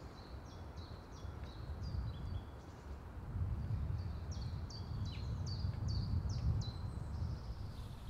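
Songbirds singing: a run of short, high notes that slide downward, several a second, busier in the second half, over a steady low rumble.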